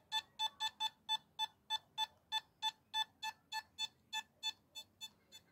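Nokta Makro Simplex metal detector sounding its target tone on a silver ring passed near the coil: short beeps at one pitch, about three or four a second. The beeps grow weaker and shorter near the end as the ring nears the edge of the detection range, around 9 to 10 inches.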